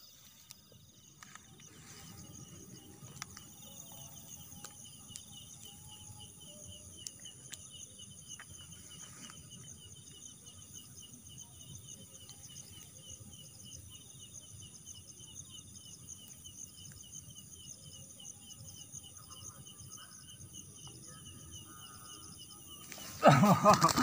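A night chorus of crickets and other insects, several steady high trills with one fast pulsing trill standing out, over faint rustling in the grass.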